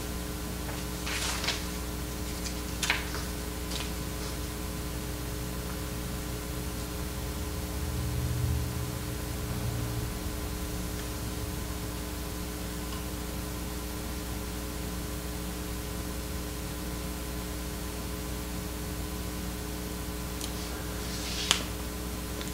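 Steady electrical hum and hiss of room tone, with a few short rustles of paper sheets being handled in the first few seconds and a single sharp click near the end.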